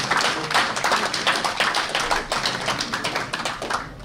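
A small audience clapping, a dense patter of many hand claps that dies away near the end.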